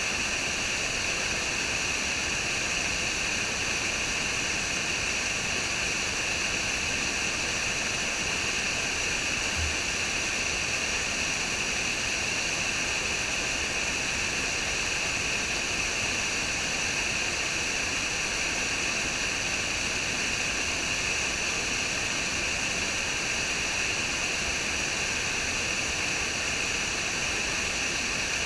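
Waterfall: water falling and rushing, a steady, even hiss that does not change.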